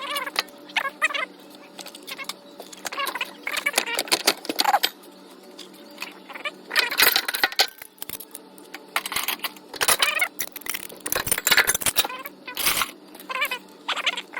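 Metal wrenches clinking and clanking against each other and the toolbox as they are handled and set down, in quick irregular bunches.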